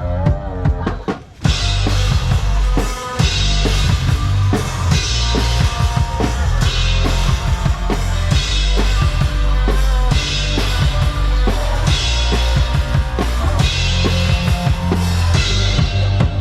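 One-man band playing a song: kick and snare drums worked by the feet keep a steady beat under a heavy bass line. After a short break about a second in, the full beat drops back in.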